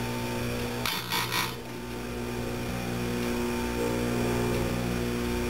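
Oregon heavy-duty bench chain grinder running steadily with a humming motor, its wheel touching a chainsaw cutter tooth in a short burst of grinding about a second in while sharpening the chain.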